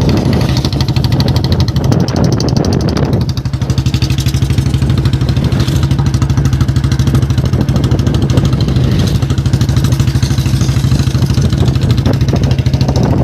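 Royal Enfield Bullet single-cylinder engine, its exhaust modified for a heavy sound, thumping steadily under way, with a brief dip in level a little after three seconds. The owner says that since the sound modification it keeps misfiring and bogging down.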